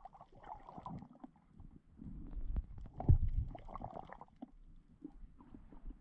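Waves and water sloshing, heard muffled underwater through an action camera's microphone. Low rumbling swells come and go, the loudest about three seconds in, between softer swishing.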